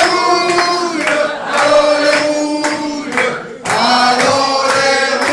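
A man singing a song into a hand-held microphone, in phrases of long held notes with short breaks between them.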